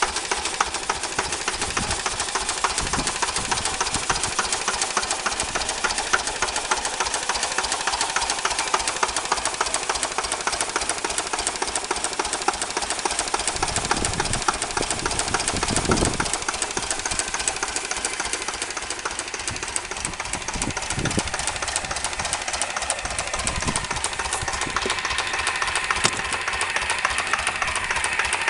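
Slavia D8 8 hp single-cylinder stationary diesel engine running steadily, a rapid, even knocking of its firing strokes.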